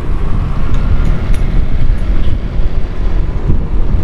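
Wind rushing over the microphone of a moving motorcycle, a steady low rumble, with the bike's engine running underneath.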